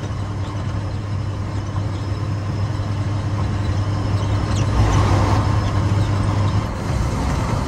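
Scania 113 truck's 11-litre straight-six diesel running steadily at cruise, with road noise, heard from inside the cab. The noise swells briefly about five seconds in.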